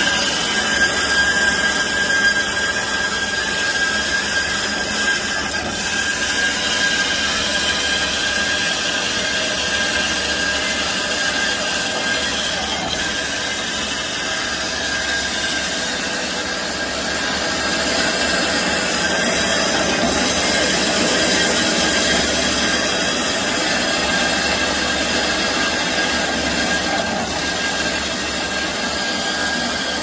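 Kyungdong industrial band saw cutting through steel high-pressure pipe, the blade grinding steadily through the metal under coolant. A steady high-pitched whine runs through the cutting noise.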